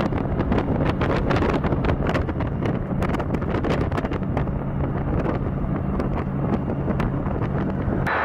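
Wind buffeting the microphone of a moving car at highway speed, over the steady low drone of the vehicle and its tyres on the road. Near the end the sound cuts off suddenly to a softer hiss.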